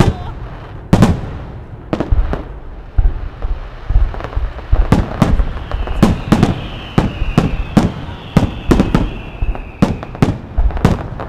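Fireworks display: aerial shells bursting in an irregular run of sharp bangs, roughly two a second, over a continuous rumble. A high, wavering whistle that slowly falls in pitch runs through the middle of the run.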